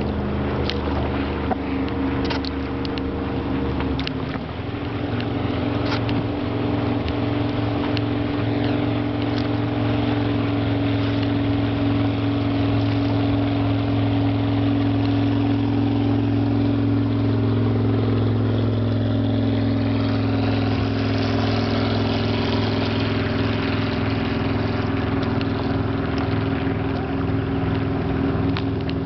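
A boat motor running steadily, settling to a different speed about four seconds in, with water and wind noise and occasional light clicks.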